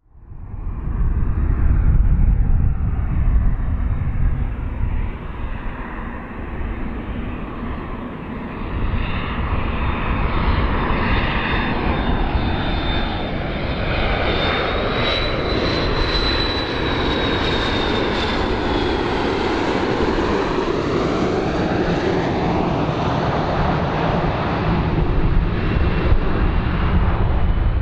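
McDonnell Douglas MD-80-series jet airliner passing close on landing approach, its two tail-mounted Pratt & Whitney JT8D turbofans giving a loud, steady rumble. A high whine glides up to a peak about halfway through as the jet passes, then sinks away.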